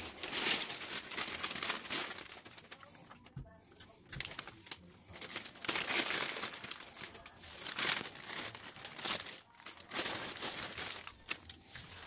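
Wrapping paper and tissue paper crinkling and rustling as they are folded and pressed around a pug, coming in bursts with a couple of short pauses.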